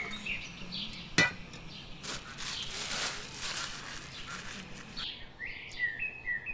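Birds chirping in short calls, with a single sharp click about a second in and a stretch of rustling noise in the middle.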